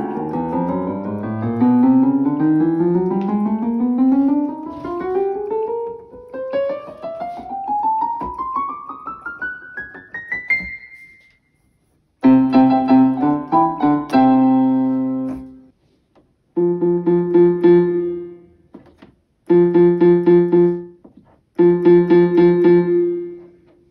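Yamaha PSR-E323 portable keyboard played in a piano voice: a run of notes climbs steadily up the keyboard for about ten seconds. After a short pause come four separate held chords.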